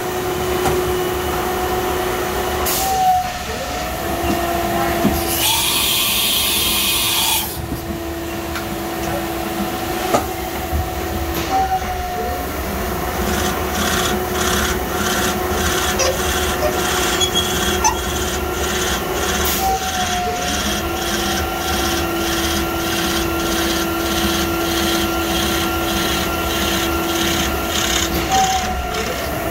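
CNC vertical mill drilling a hole into solid brass bar with a large twist drill: the spindle whines at a steady pitch, and the tone breaks off and glides back about every eight seconds. A short hiss comes about six seconds in, and a fast regular ticking runs through the second half.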